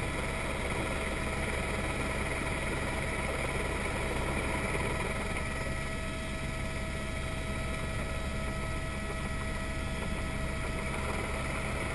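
Helicopter in flight, heard from inside the cockpit: a steady engine and rotor drone with several constant whining tones over a low rumble and hiss.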